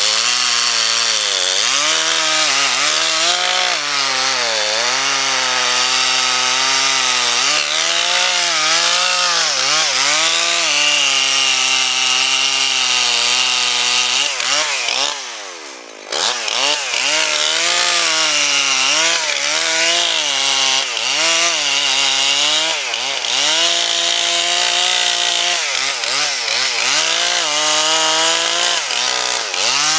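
Two-stroke chainsaw running at high revs while cutting wood, its pitch wavering up and down as the chain loads and unloads in the cut. About halfway through, the revs fall away sharply for a moment and then climb back to full speed.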